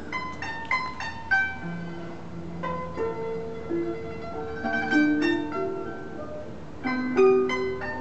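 Guzheng (Chinese plucked zither) being played: a slow melody of single plucked notes that ring on after each pluck, with quick runs of several notes around five seconds in and near the end.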